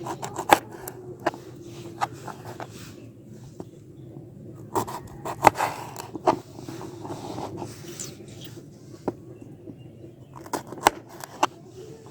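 A kitchen knife cutting lemons in half: irregular sharp knocks and scrapes, bunched at the start, around the middle and again near the end.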